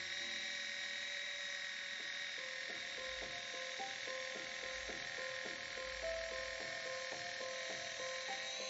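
Battery-powered Bangrui electric can opener running steadily by itself on top of a can, its small motor giving a constant high whine as it cuts around the lid.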